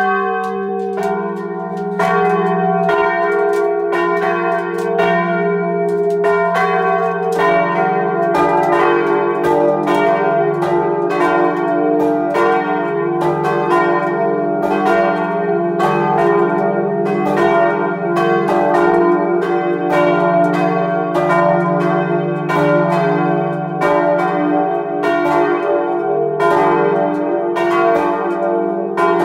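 Three rust-covered 1954 steel church bells, swung by electric bell motors, ringing together in a full peal heard close up inside the bell chamber. Their clapper strikes overlap in a steady, uneven stream over a long, loud ring of several tones.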